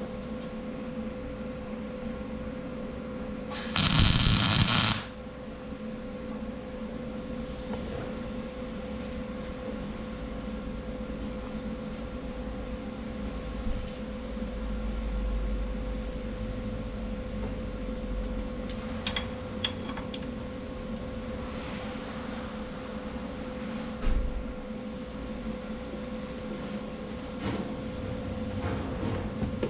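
Workshop tool noise: a steady hum with a held tone, broken about four seconds in by one loud buzzing burst lasting just over a second, followed by scattered light clicks and a knock.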